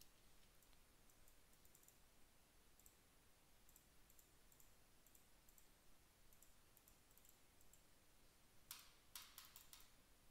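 Faint clicks of a computer mouse at a desk, scattered through near-silent room tone, with a quick run of louder clicks about nine seconds in.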